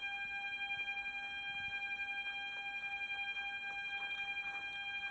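A steady whine at one fixed pitch, with higher overtones, pulsing faintly in a rapid even ticking.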